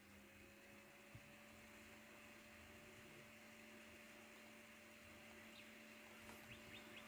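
Near silence with a faint, steady electrical hum; the higher of its two tones rises slightly in the first second.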